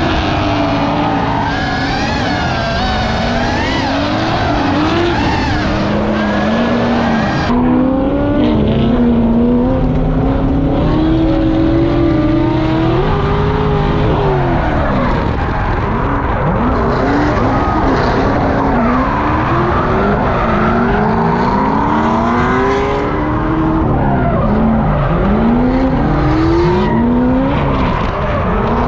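Drift cars on track: engines revving up and falling back again and again as the cars slide, with tyre squeal and skidding under the engine sound. About 7.5 s in the sound changes abruptly and the highest part of it drops away.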